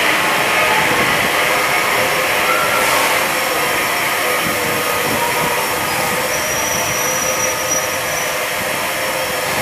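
Train of coaches hauled by a steam locomotive rolling slowly past along the platform as it arrives, with a loud, steady hiss of steam escaping beneath the coaches and faint, thin, steady squeals.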